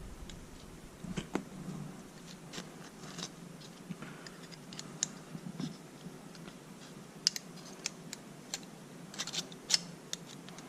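Faint handling noises as a fabric latch-pull strap is fed through a plastic holder: irregular light clicks and rustling.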